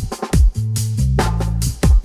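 Electronic music with a steady beat: deep kick-drum hits that drop in pitch, crisp high percussion and a sustained bass line.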